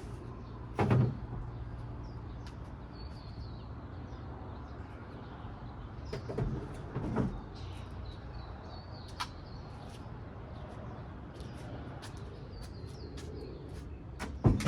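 A loud thump about a second in and a few softer knocks around six to seven seconds in, over a steady low hum, with faint bird chirps.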